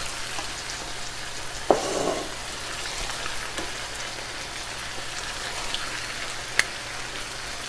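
Raw chicken pieces sizzling in hot oil with ginger-garlic paste and green chutney in a wok: a steady frying hiss. A sharp click comes a little under two seconds in, with a brief louder sizzle after it, and another click near the end.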